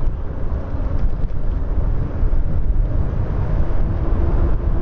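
Wind buffeting the microphone over the steady rolling noise of a fat-tyre e-bike riding along a dirt trail.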